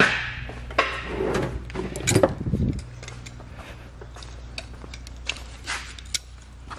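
Scattered clinks and knocks of metal hand tools being handled, busiest in the first three seconds, over a steady low hum.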